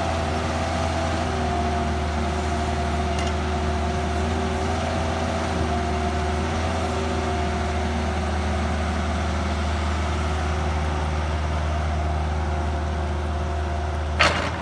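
Kubota mini excavator's diesel engine running steadily, with a steady hydraulic whine, as the machine tracks across a ditch. A single sharp knock sounds near the end.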